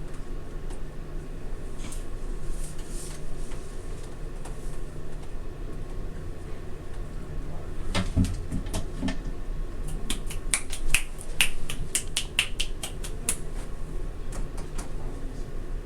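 Steady low hum with a low thump about halfway through, followed by a quick run of sharp clicks and crackles near the end.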